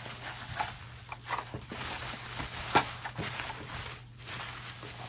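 Bubble wrap crinkling and rustling as it is pulled open by hand, with irregular crackles and one sharp snap a little past halfway.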